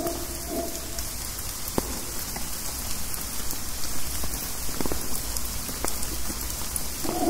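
Rain dripping steadily through the forest canopy, a constant hiss with single drops hitting leaves now and then. A howler monkey's low, pulsing howl trails off about a second in and starts up again just before the end.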